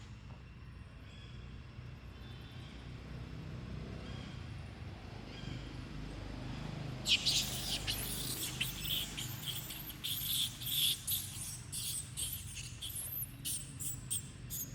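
Baby monkey giving a rapid run of high-pitched squeaks and squeals, starting about halfway through and going on to the end.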